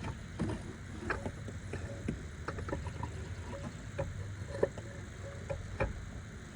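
Scattered light clinks and knocks of a BMW N55's AC compressor being eased out of the engine bay on its refrigerant lines, metal against metal. The loudest come about four and a half and six seconds in, over a low steady rumble.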